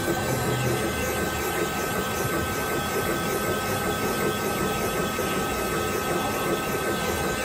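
Cylinder-head machine running as its spindle cutter machines a valve guide down on the outside, making a shelf for a positive-type valve seal: a steady whine over a constant hiss.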